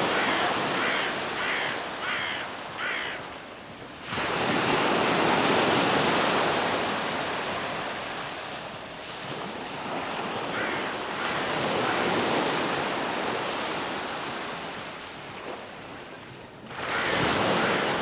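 Stormy sea waves breaking against a seafront embankment: a loud surf noise that swells and fades, with a fresh surge about four seconds in and another near the end.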